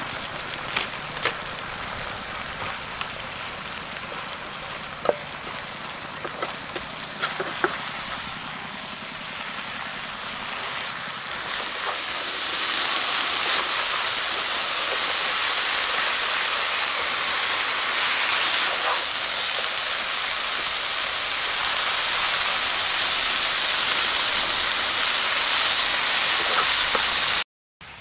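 Eel and basil leaves stir-frying in a hot wok: a steady sizzle that gets louder about twelve seconds in, with a few light clicks of the spatula against the wok in the first eight seconds.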